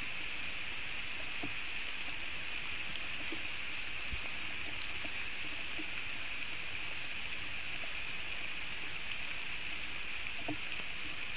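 Steady rain falling on the forest, a continuous hiss with faint scattered drips and ticks.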